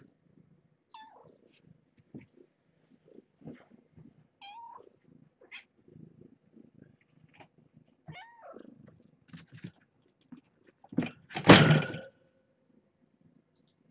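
Kittens meowing, a few short high calls that fall in pitch, among soft shuffling and movement sounds. Near the end comes a much louder noisy burst lasting about a second.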